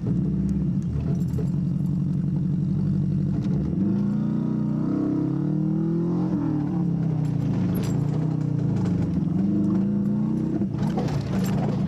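Subaru Leone's flat-four engine running under load, heard from inside the cabin while driving over a rough grass field; its pitch rises and falls in the middle as the revs change. Occasional knocks and rattles from the bumpy ride.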